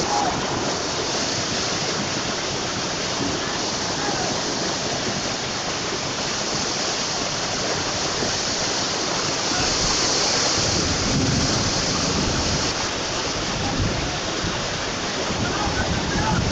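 Fast floodwater rushing along a street in a steady torrent, a constant heavy hiss of fast-moving water.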